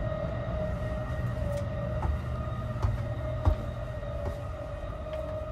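A steady high electronic tone starts suddenly and holds without a break over a low rumble, as the sleeper train is about to depart.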